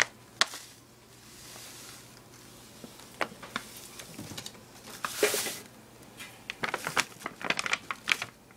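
Kitchen handling sounds while making cornbread: scattered light clicks and taps, a soft hiss, and a short louder rustle about five seconds in, with a quick run of clicks near the end.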